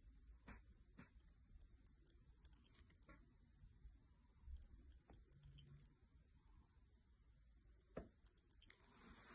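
Near silence with faint, scattered clicks and scratches from a hand-held microblading pen's blade cutting strokes into eyebrow skin, and one soft knock about eight seconds in.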